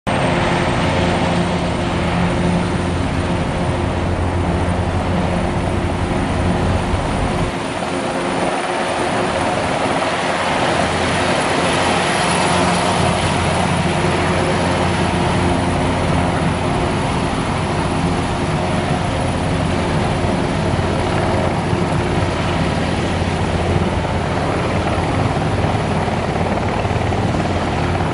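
Eurocopter AS332 Super Puma's twin turbine engines and four-bladed main rotor running steadily as the helicopter sits on the pad and lifts into a low hover. A thin, high turbine whine rides over the rotor noise, and the low rumble drops briefly about eight seconds in.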